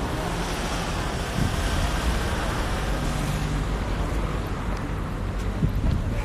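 Street traffic: cars passing on the road, a steady rumble of engines and tyres.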